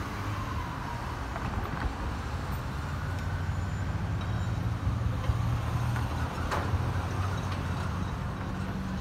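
Road traffic: cars and pickup trucks driving across the railroad crossing, a steady low engine rumble that swells a little in the middle as vehicles pass close.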